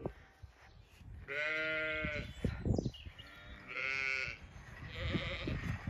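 Zwartbles sheep bleating: a long bleat a little over a second in, a shorter one around four seconds, and a fainter one near the end.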